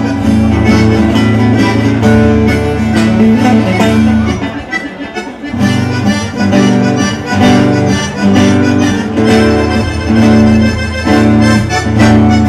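Instrumental break in a live gaúcho regional song: acoustic guitars and bass under a held, reedy lead melody. The bass drops out briefly about five seconds in.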